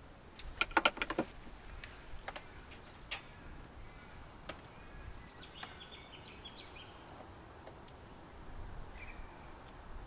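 Sharp clicks and knocks from a folded roof-top tent and its fittings on a roof rack being handled: a quick cluster of them about half a second to a second in, then scattered single clicks. Faint bird chirps around the middle.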